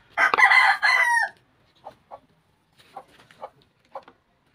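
A rooster crowing once, about a second long, with the call dropping in pitch at the end. It is followed by a few short, separate clucks from chickens.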